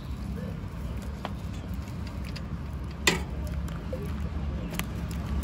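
Street background noise: a steady low rumble of traffic, with a few short clicks and one sharp click or clatter about three seconds in.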